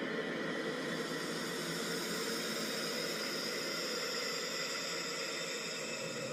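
Steady hiss-like noise with a few faint held tones running under it.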